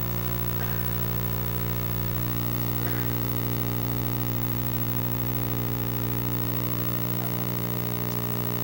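Steady low electrical hum with a row of evenly spaced overtones, typical of mains hum picked up through a sound system, with a faint murmur of voices now and then.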